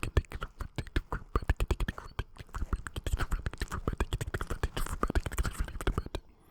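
Rapid mouth sounds: a quick run of lip smacks and tongue clicks, several a second, that stops shortly before the end.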